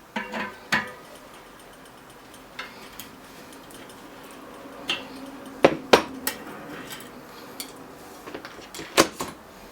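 Metal tools clinking and knocking against a bicycle cassette as they are set up to remove it, a handful of separate sharp clinks with pauses between them.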